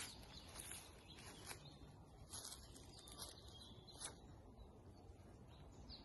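Near silence: faint outdoor ambience with a few soft, scattered clicks in the first few seconds.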